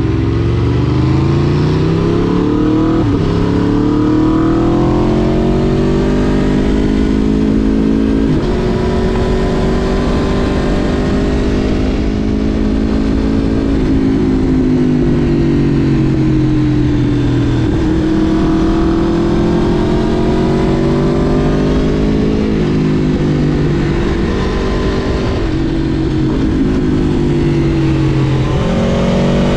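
Aprilia RSV4 Factory's V4 engine under way, revs climbing and falling repeatedly, with sudden drops in pitch at the gear changes.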